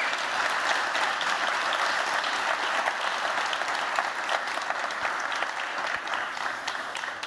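Audience applauding steadily, a dense patter of many hands clapping, easing off slightly near the end.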